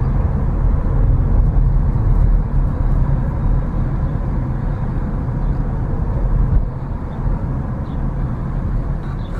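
Car in motion heard from inside the cabin: a steady low rumble of engine and tyres on the road at low speed, easing slightly in the last few seconds.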